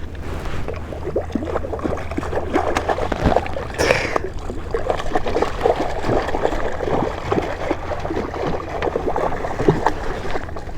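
Irregular, choppy water splashing and slapping close beside a kayak as a hooked bluefish thrashes at the surface, over a steady low rumble of wind.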